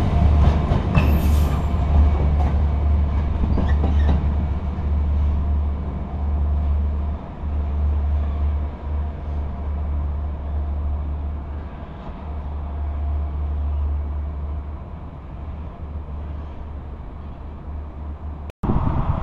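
Class 66 diesel-electric locomotive running light and drawing away, its two-stroke V12 engine giving a steady low drone with a few wheel knocks early on. The drone slowly fades as the locomotive recedes.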